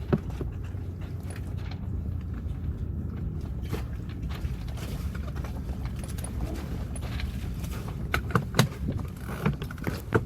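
Wind rumbling on the microphone, with a few sharp knocks near the end.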